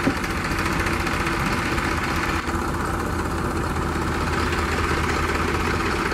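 Tractor diesel engines running steadily at idle, an even low hum.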